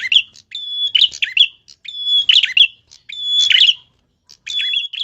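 A tilek songbird singing energetically in repeated phrases, about one a second: each is a held high whistle that breaks into quick falling chirps. The song stops at the very end.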